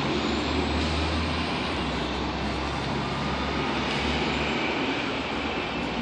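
Steady mechanical rumble and hiss, unbroken, with no distinct knocks or events.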